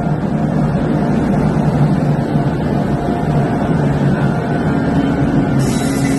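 Moving train running steadily, a continuous low rumble with a steady low hum.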